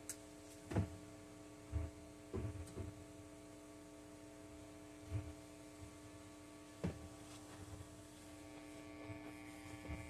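Steady electrical mains hum from a guitar amp with a Stratocaster plugged in but not being played. About six dull thumps and knocks come through it as the guitar is lifted off and set down.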